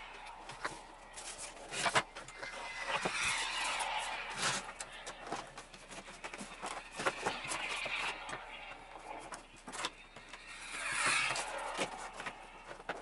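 Handling noise from a foam Durafly Tundra model airplane being turned over and taken apart on a wooden table: foam rubbing and rustling, with scattered clicks and knocks as the parts are moved.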